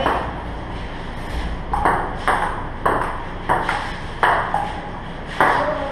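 Table tennis ball in a doubles rally: a run of sharp clicks off the paddles and the table, about two a second, starting a little under two seconds in.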